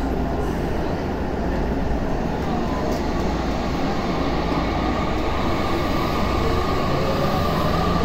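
Tokyu 5050 series electric train pulling away from an underground station, heard from inside the car. Its Hitachi IGBT-VVVF traction motors hum over the running rumble, with a tone that climbs as the train gathers speed from about halfway through.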